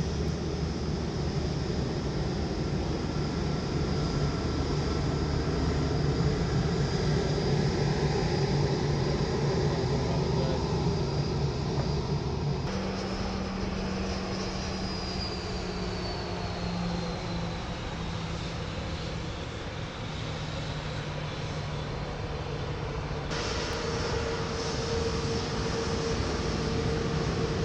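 Jet airliner engines at taxi idle: a steady high whine over a low hum. The sound changes abruptly twice, about 13 seconds in and about 23 seconds in. In the middle stretch the high whine slides slowly down in pitch.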